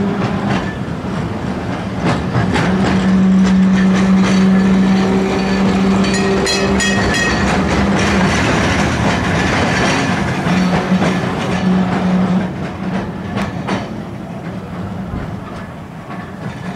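Narrow-gauge electric tram running past, with a steady low hum and its wheels clicking over the rail joints. It is loudest as it goes by, from about three to ten seconds in, then fades as it draws away.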